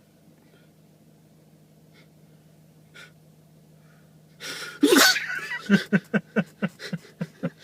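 A man's loud sneeze bursts out about four and a half seconds in. It is followed by a rapid run of short, voiced gasping spasms, about five a second.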